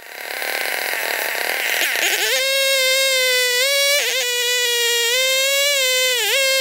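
Chainsaw engine revving up to a high, steady whine about two seconds in, its pitch dipping briefly twice.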